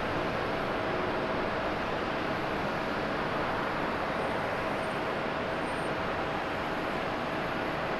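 Airbus A350-900's Rolls-Royce Trent XWB turbofan engines running at low power as the airliner rolls out along the runway after landing: a steady rumble with a faint steady hum.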